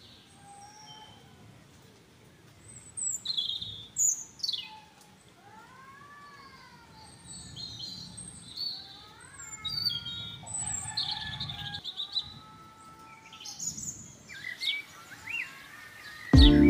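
Birds chirping and calling: scattered short high chirps and several lower arching whistled notes, over a faint steady background hum.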